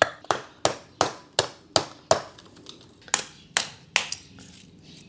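A hammer striking big lumps of charcoal in a small metal charcoal stove to break them up. About ten sharp, cracking blows come roughly three a second, with a pause of about a second midway.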